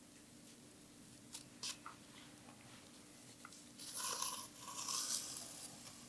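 Hand-sewing backstitch in a wool blanket: a few faint ticks of the needle through the cloth, then about four seconds in a rasping hiss lasting roughly two seconds as the wool thread is drawn through the fabric and the pinned paper template.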